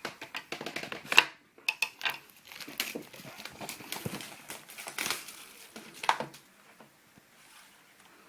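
Plastic wrapping on a sealed trading-card box crinkling and tearing as it is handled, in irregular bursts that die down about six seconds in.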